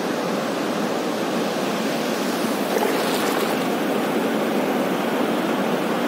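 Breaking surf: a steady rush of whitewater and foam washing over a sandy beach, growing a little louder about three seconds in.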